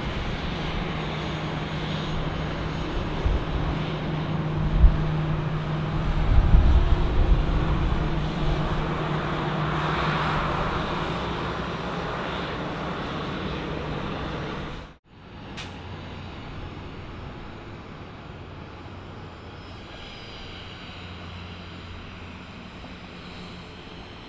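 Airbus A320-family airliner taxiing close by, its turbofans idling with a steady hum and hiss, with a few louder low rumbles about four to eight seconds in. After an abrupt cut about halfway through, the quieter, steadier jet noise of an Airbus A350-900's Rolls-Royce Trent XWB engines on approach.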